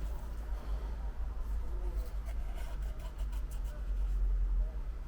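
Light scratching and small scattered clicks of the iPhone's frame being cleaned with isopropyl by hand, over a steady low hum.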